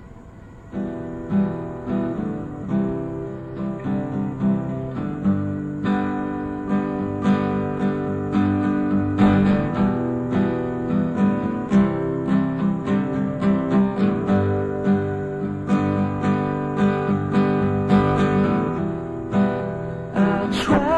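Acoustic guitar playing a song intro, picked and strummed in a steady rhythm, from an old tape recording. Faint tape hiss comes first, and the guitar comes in about a second in.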